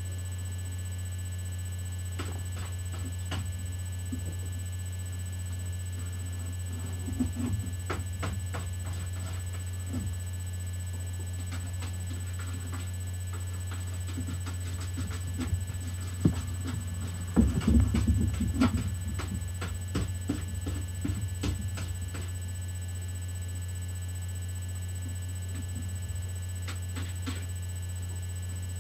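Steady low hum, with scattered soft knocks and rustles and a cluster of louder knocks about two-thirds of the way through.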